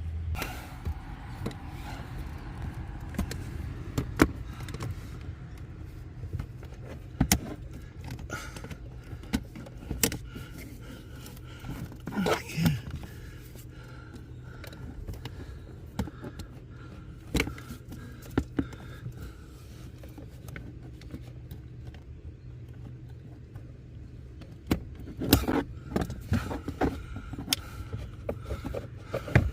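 Scattered clicks, knocks and rattles of hands working a car's air-conditioner blower fan motor and its plug loose under the dashboard, with a busier run of knocks near the end, over a steady low hum.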